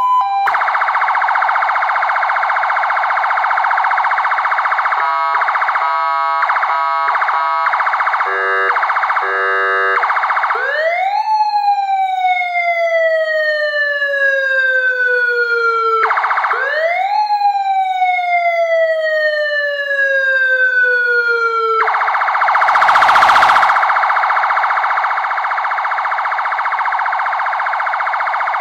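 Electronic siren amplifier driving a 100 W, 8-ohm speaker, stepping through its tones: a fast warble, then choppy pulsing tones and a rapid alternation between two pitches. Next come two long sweeps that each rise quickly and then fall slowly. The fast warble returns near the end, with a brief rushing blast in its middle.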